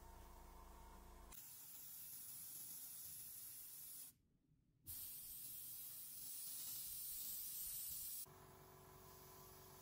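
Gravity-feed airbrush spraying paint: a steady high hiss of air, which breaks off for under a second about four seconds in and then resumes. A faint low hum is heard before and after the spraying.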